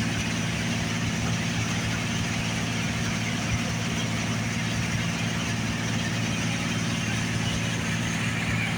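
John Deere 7700 combine running steadily while harvesting barley: a constant engine hum over the even rushing noise of the machine at work.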